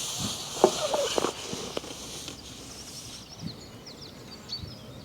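A hiss with a few sharp knocks and short squeaks for about the first three seconds, then small birds chirping rapidly.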